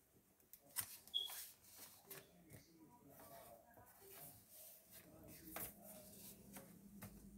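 Faint pencil scratching and tapping on a sheet of paper on a desk, with a scatter of sharp ticks, the loudest about a second in.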